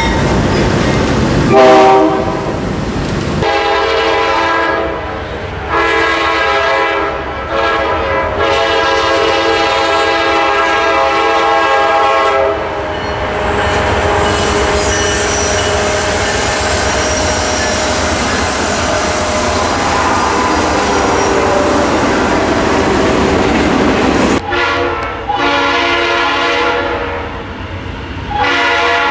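Diesel freight locomotive air horns sounding several long blasts, a chord of steady tones. For about ten seconds in the middle, the horns give way to the steady rumble of locomotives and rail noise. At the start, two GE C44-9W locomotives running light rumble past.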